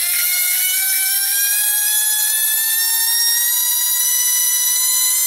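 A tiny 20mm electric ducted fan's motor and impeller spinning up: a high whine with many overtones, rising slowly in pitch as the throttle is advanced and levelling off near the end. Having passed the rough, vibrating mid-throttle spot of its bushing-mounted motor shaft, the balanced fan now runs smoothly.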